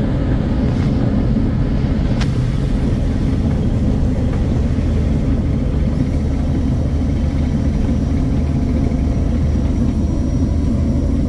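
Light aircraft's piston engine and propeller running steadily at low power, heard inside the cockpit as the microlight taxis; one short click about two seconds in.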